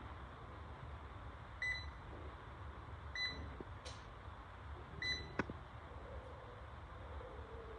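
Three short electronic beeps from the control panel of a spinal decompression bed, spaced about one and a half to two seconds apart. Sharp clicks follow the second and third beeps, over a steady low background hum.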